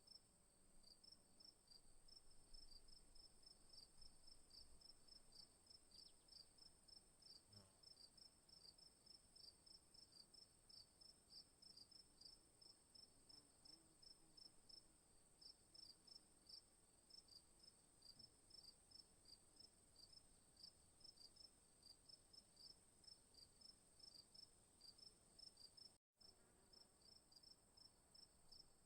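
Faint night insect chorus: crickets chirping in a regular pulse, about two to three chirps a second, over a steady high-pitched trill. The whole sound cuts out for an instant near the end.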